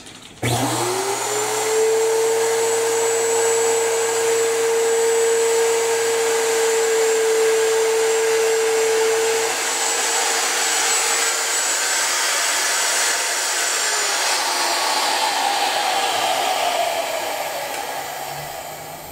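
Handheld wood router motor starting up with a rising whine and running at a steady high pitch, then switched off about two-thirds of the way through and winding down with a falling whine.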